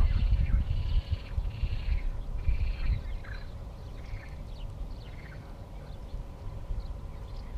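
Animal calls: a run of short, repeated calls in the first few seconds, thinning to scattered chirps, over an uneven low rumble that fades somewhat about a second in.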